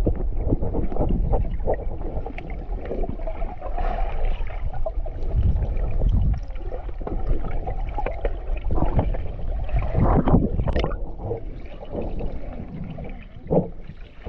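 Muffled underwater water noise picked up by a submerged action camera's microphone: uneven gurgling and sloshing with occasional louder surges.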